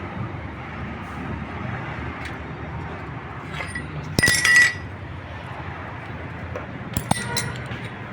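Metal parts clinking during motorcycle gearbox repair work: one loud ringing clink about four seconds in, then a few lighter clicks near the end, over a steady low hum.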